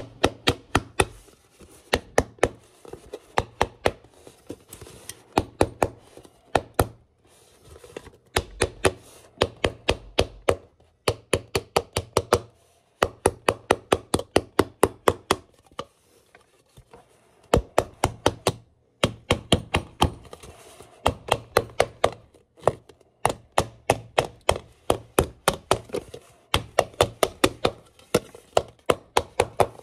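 A screwdriver handle rapidly tapping the thin aluminum reflector dome of a clip-on brooder lamp, about five blows a second in runs broken by short pauses. The blows are flattening and lowering the top of the dome.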